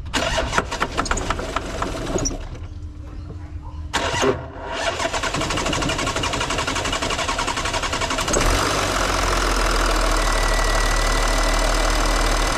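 Audi Q7 diesel engine being cranked by the starter: a first crank of about two seconds that doesn't catch, then a second crank about four seconds in on which it fires and runs, settling into a louder steady run about eight seconds in. The slow start comes from the injectors having no diesel in them after being removed to replace their copper seals.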